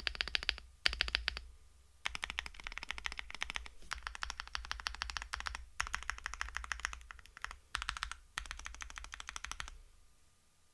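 Fast typing on a stock Yunzii AL71 aluminium-cased mechanical keyboard: dense runs of key clicks in several bursts with short pauses between them, stopping shortly before the end.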